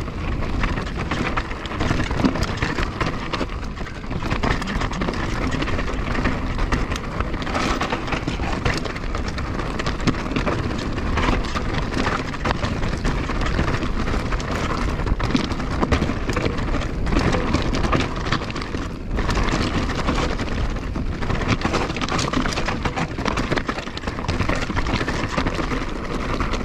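Canyon Torque enduro mountain bike ridden along a stony singletrack: a steady crunch and rattle of tyres over gravel and rock, with many small knocks from the bike.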